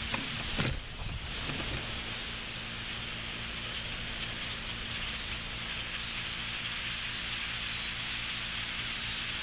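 A huge flock of birds: a steady, dense din of many calls from the flock overhead. A couple of knocks in the first second, with a steady low hum underneath.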